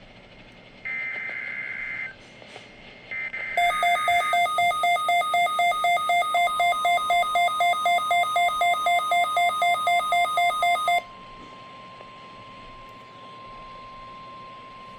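NOAA Weather Radio SAME required weekly test signal: two short raspy digital header bursts, then a weather alert receiver's alarm beeping loudly about four times a second for roughly seven seconds. Partway through the beeping, a steady 1050 Hz warning alarm tone comes in and carries on alone after the beeping stops.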